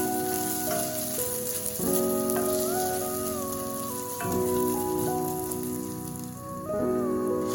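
Food sizzling in a hot frying pan, a steady hiss that thins out for a while near the end, under background music of slow, sustained chords.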